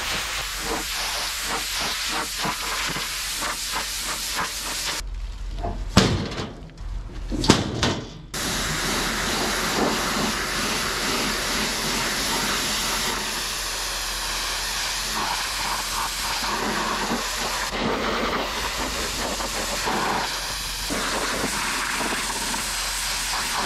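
Pressure washer spraying water onto a car: a steady hiss that cuts out for about three seconds around five seconds in, with two knocks during the gap, then starts again.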